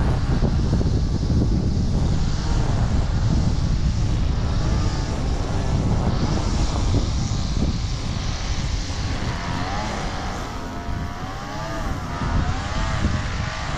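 Wind buffeting the microphone, with a leaf blower running; the blower's pitch wavers up and down near the end.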